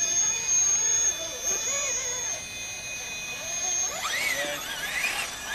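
Electric motor and geared drivetrain of a radio-controlled scale crawler whining as it creeps over tree roots. The pitch wavers and sweeps up and down with the throttle, most strongly from about four seconds in, over a steady high whine.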